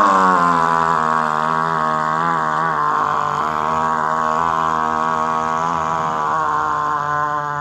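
A man's voice holding one long, steady 'aaah' from the throat, the sustained exhalation of the simhasana (lion pose) yoga exercise, fading slightly near the end.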